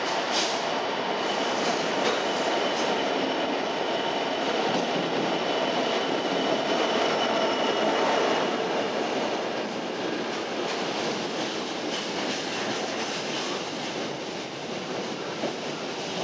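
Freightliner Class 66 diesel locomotive hauling a container freight train past at close range, followed by the steady rumble and clatter of its wagons' wheels on the rails. A faint high wheel squeal runs through the first half.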